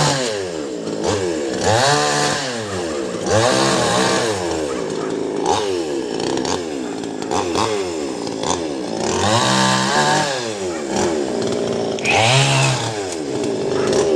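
Chainsaw engine revving up and dropping back again and again, about once every second and a half.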